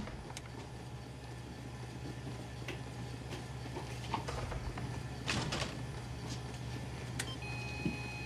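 Quiet hospital room tone: a steady low hum with scattered soft clicks and rustles of movement, and a faint steady electronic tone from medical equipment starting near the end.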